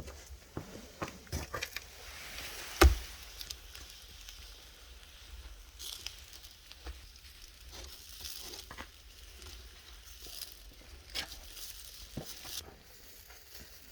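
Food-preparation handling sounds: scattered clicks and knocks with short hissing patches, and one sharp loud knock about three seconds in.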